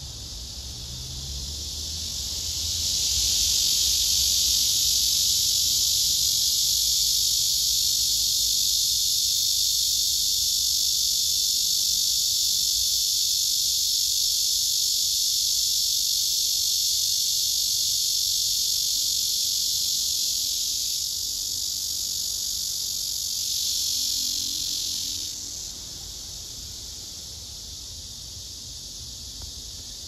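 Male cicada singing its courtship song: a loud, steady, high-pitched buzz that swells in over the first few seconds and holds for about twenty seconds. It eases slightly, swells once more and cuts off abruptly about 25 seconds in.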